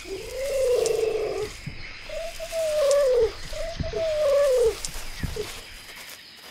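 Three dubbed dinosaur calls, cooing hoots that each rise and then fall in pitch and last about a second, with short gaps between them.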